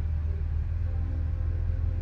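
Slow ambient background music with held notes over a steady low vehicle rumble.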